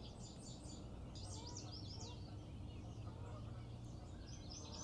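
Small birds singing and chirping, many short high calls and trills overlapping, over a faint steady low hum.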